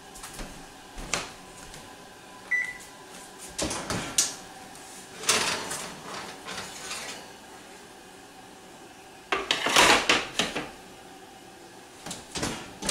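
Oven door opened and a metal baking sheet handled on the oven's wire rack: scattered knocks and clatters, then a longer metallic scrape and clatter as the pan is slid out and set down on the glass cooktop, with a short high beep between two and three seconds in.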